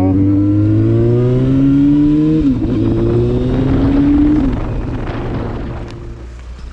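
Motorcycle engine accelerating: its pitch rises steadily, drops at a gear change about two and a half seconds in, and rises again. After about four and a half seconds the throttle eases off and the engine sound fades.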